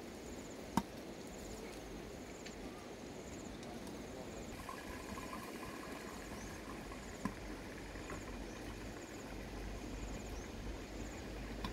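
Insects chirping in short, evenly repeated high trills over faint outdoor background noise, with one sharp click about a second in and a softer one past halfway.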